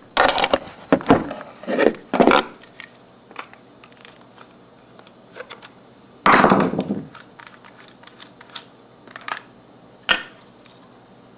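Handling noise as a handheld camera is set down on a hard surface: a cluster of knocks and clatter in the first couple of seconds, then scattered light clicks, with a longer, louder rustling knock about six seconds in.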